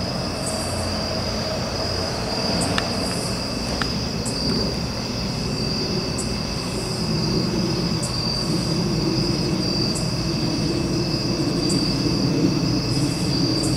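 Approaching freight train loaded with stone, its low rumble building and growing louder through the second half. A steady high trill of night insects runs through it.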